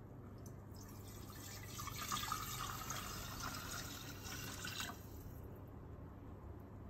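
Water poured from a glass jug through the lid opening into a Thermomix TM6's stainless steel mixing bowl, starting about a second in, growing louder at about two seconds, and stopping about five seconds in.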